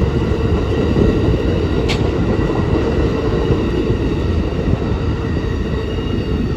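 Amtrak passenger train rolling slowly past, a steady low rumble with one brief click about two seconds in.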